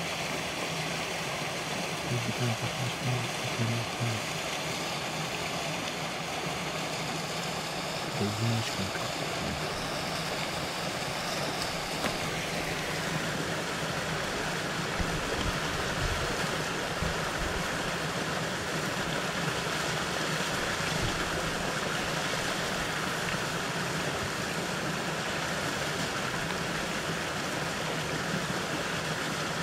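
Steady rushing noise with a few short low bumps in the first nine seconds. The noise changes character about twelve seconds in.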